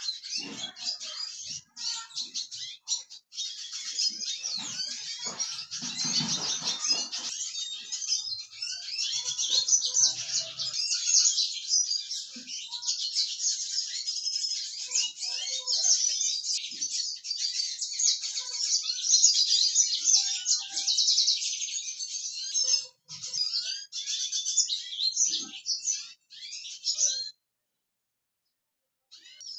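Small finches singing a fast, continuous, high twittering song, which stops about two seconds before the end.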